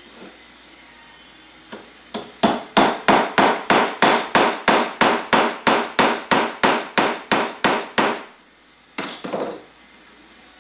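A steel hammer tapping a punch set against an aluminium 33mm Mikuni carburetor body: about eighteen sharp, even strikes at roughly three a second, driving a part out of the carb. Near the end, a short clatter as the hammer is laid down on the bench.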